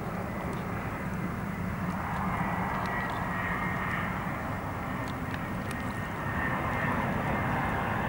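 Airbus A319 jet engines during landing: a steady rush with a thin high whine, growing gradually louder.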